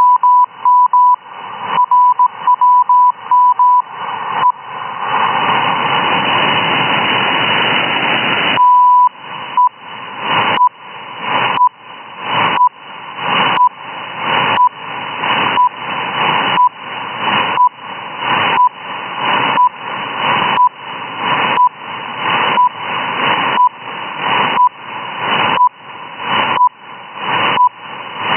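Shortwave RWM time-signal station heard through an SDR receiver as beeps near 1 kHz over static hiss. For the first few seconds the tone is keyed in quick Morse code, likely the station's call sign, then there are a few seconds of hiss alone. About nine seconds in a longer tone marks the start of the minute, followed by short second pulses once a second, with the static swelling back up between beeps as the receiver's gain recovers.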